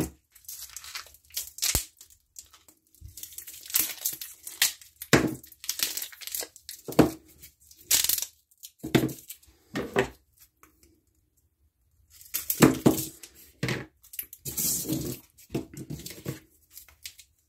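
Plastic sleeves of frozen freezer pops crinkling and rustling in irregular bursts as they are handled and laid out on a wooden table, with a short quiet pause a little past the middle.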